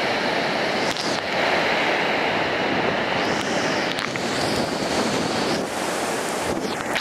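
Stormy surf breaking in rows and washing in, a steady rush, with wind gusting on the microphone.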